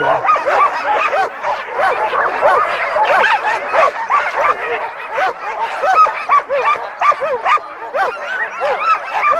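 A pack of sled dogs yipping, barking and whining together: many short rising-and-falling calls overlapping without a break.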